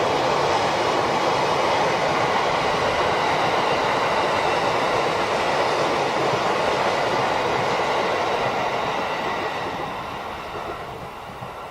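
E657 series electric train running past, a steady loud rush of wheels on rail that begins to fade away in the last few seconds as the train recedes.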